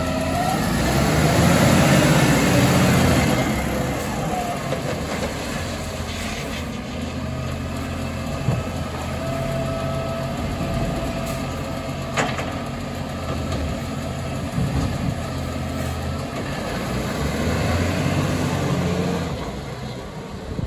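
Garbage truck's diesel engine running as the truck moves off, louder for a couple of seconds near the start and then a steady low drone, with a sharp click about twelve seconds in.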